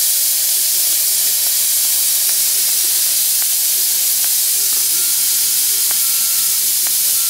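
5-inch gauge live-steam model of an LMS Princess Royal class Pacific, 46206, standing with steam hissing steadily. A few light clicks sound over the hiss.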